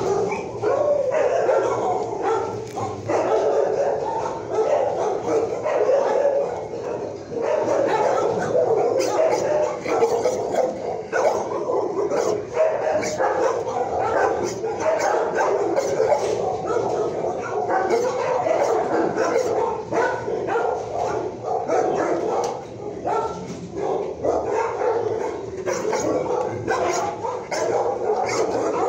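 Many shelter dogs barking and yipping at once, a continuous overlapping din with no let-up.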